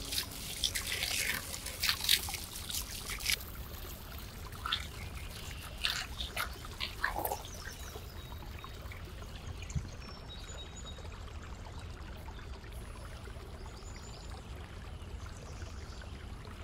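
Water trickling steadily, with scattered clicks and knocks over the first several seconds.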